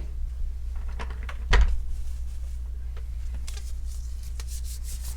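Laptop parts being handled on a bench: one sharp knock about a second and a half in, then light clicks and rustling near the end, over a steady low hum.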